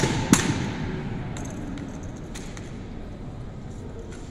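A sharp clack of a drill rifle being handled or caught, about a third of a second in, echoing in a large hall. A few fainter clicks of rifles follow over a fading background murmur.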